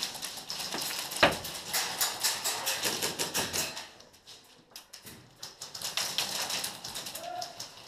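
Airsoft guns firing in rapid bursts, a fast clatter of clicks that echoes between plywood walls. It is dense for the first few seconds, eases off about four seconds in, then comes back in scattered shots.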